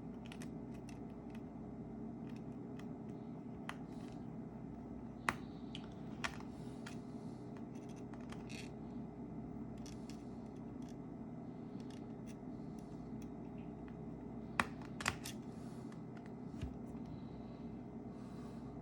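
Scattered sharp clicks and short scrapes of small tools and parts being handled during an iPhone repair, over a steady low hum. The loudest clicks come about five seconds in, twice more shortly after, and as a close pair about fourteen and a half seconds in.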